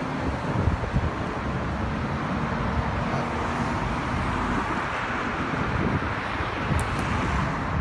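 Road traffic driving past: a rushing tyre-and-engine noise that swells toward the middle and eases near the end as cars pass, with wind buffeting the microphone.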